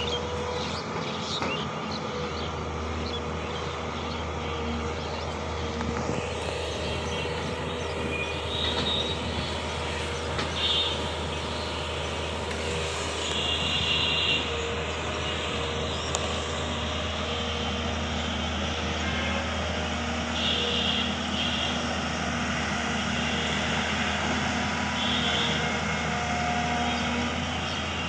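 Link-Belt Sumitomo LS-3400 long-reach excavator's diesel engine running steadily under load as it digs river mud with its bucket, with short higher-pitched sounds recurring every few seconds.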